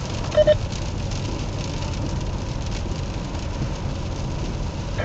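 Steady low drone of engine and road noise inside the cabin of an Opel Zafira Tourer cruising in sixth gear at about 85 km/h, its A20DT 2.0 CDTI diesel at low revs.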